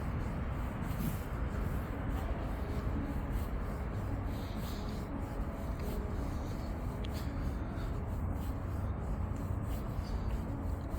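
Footsteps on a walking path, about two steps a second, over a steady low rumble of wind on a phone's microphone.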